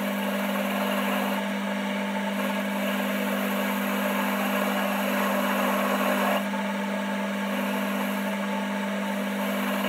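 Metal-turning lathe running with a steady hum while a tool cuts the blank, a hissy cutting noise over the motor, changing character about six seconds in.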